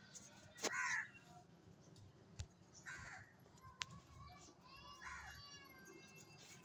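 An animal calling faintly: three short falling calls, about two seconds apart.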